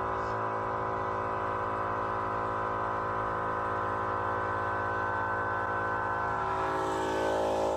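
Background music of several held, droning synth tones at a steady level.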